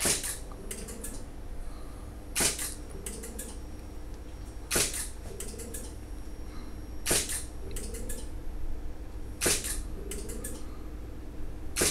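DSLR shutter firing about every two and a half seconds, six times. Between shots the stepper motor of a homemade Arduino-driven photo turntable gives a brief hum and a few light clicks as it turns the object to the next angle.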